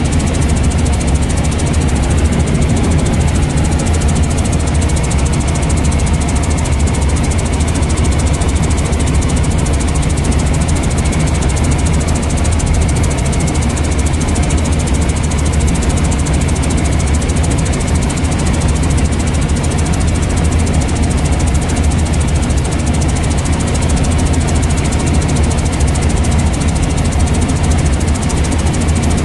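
Helicopter engine and rotor running steadily in flight, heard from inside the cabin: a loud, even drone strongest in the low end.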